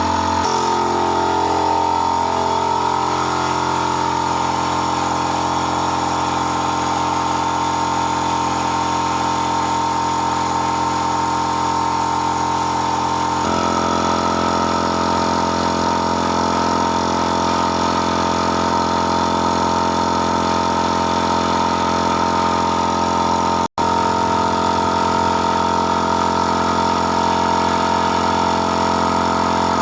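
A motor-driven machine running steadily at constant speed, a continuous hum with several steady tones; its tone shifts slightly about halfway through, and it drops out for an instant about three-quarters of the way through.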